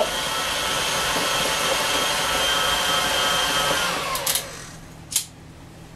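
Electric stand mixer running at medium speed with a steady motor hum, its beater whipping mashed potatoes with cream. About four seconds in it is switched off and the motor winds down, followed by a sharp click about a second later.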